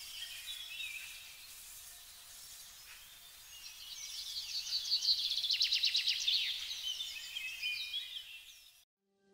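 Birds chirping and singing, with a fast rattling trill in the middle that is the loudest part. The sound cuts off suddenly near the end.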